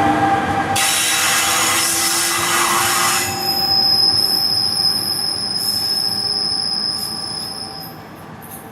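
NJ Transit push-pull commuter train of Multilevel II coaches with an ALP-46A electric locomotive. A steady hum gives way about a second in to a hiss lasting about two seconds, then a steady high-pitched squeal holds for about five seconds and fades near the end.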